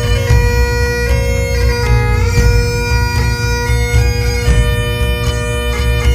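Bagpipe music: a steady drone under a stepping melody, over a strong low beat.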